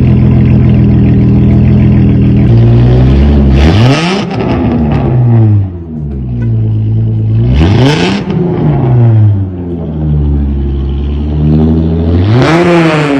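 Ford Mustang engine running through exhaust piping taken from a 2005 Mustang. It idles steadily for about two and a half seconds, then is revved three times, each rev climbing and falling back to idle.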